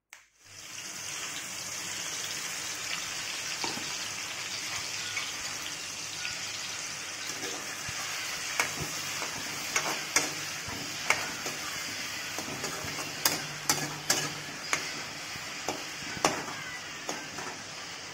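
Chopped onions and tomatoes sizzling in oil in a metal kadai, with a steady hiss. From about eight seconds in, a metal spatula scrapes and clicks against the pan as it stirs.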